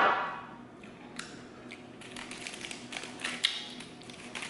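A hot sauce bottle knocked down onto the tabletop, ringing briefly, then aluminium foil crinkling and crackling in small clicks as it is peeled back from a burrito, over a close-up of chewing.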